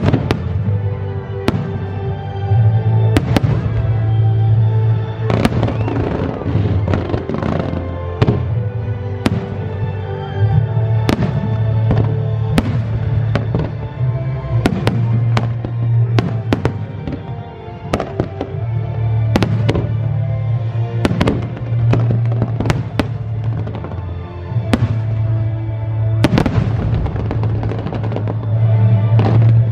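Fireworks display: shells bursting in an irregular series of sharp bangs, about one or two a second, over music with a steady deep bass.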